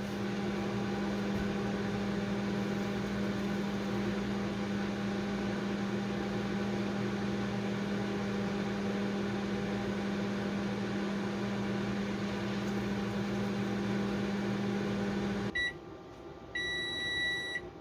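Microwave oven running with a steady hum, shutting off about fifteen seconds in, then beeping: one short beep and then a longer beep as the heating cycle ends.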